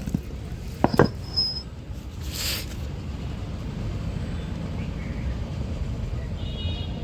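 A few sharp knocks, one at the start and two about a second in, from engine parts being handled on a workbench, followed by a steady low rumble of workshop background.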